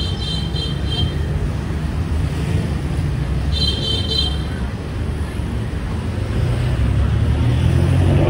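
Steady low rumble of street traffic engines, growing louder near the end. Two short bursts of high-pitched tones, each about a second long, come at the start and about three and a half seconds in.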